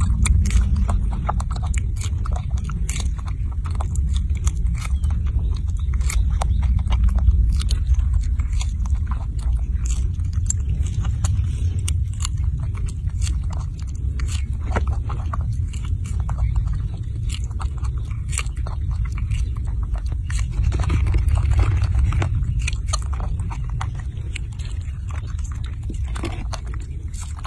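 Baby macaque biting into and chewing strawberries close to the microphone: many quick, wet clicks and smacks of biting and chewing, over a steady low rumble.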